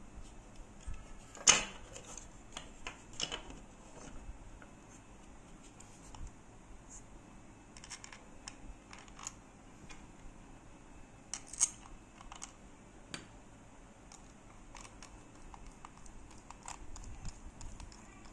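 Scattered plastic clicks and taps as a switched wall-socket faceplate is handled and fitted onto its plastic back box, with the sharpest click about a second and a half in and another near the middle.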